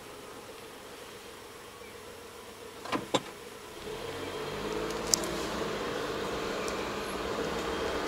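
Car engine idling inside the cabin, two sharp clicks about three seconds in, then the engine picking up with rising pitch as the car pulls away from a stop.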